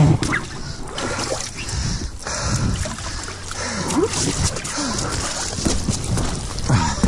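Lake water splashing and sloshing against inflatable aqua-park platforms as a person scrambles across them, with irregular knocks and rubbing on the wet vinyl.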